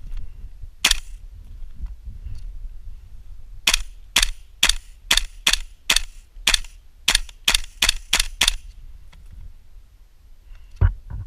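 Airsoft gun firing: a single shot, then after a pause a string of about a dozen quick single shots at roughly two a second. A low thump comes near the end.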